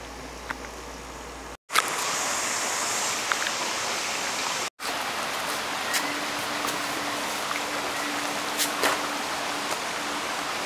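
Steady rush of a rocky creek's flowing water, starting abruptly about a second and a half in after a short stretch of faint room hum.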